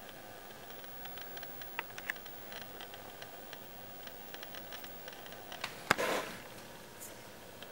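Camera handling noise: faint scattered ticks and clicks over a low hiss, then a sharp click and a short rustle about six seconds in as the camera is swung.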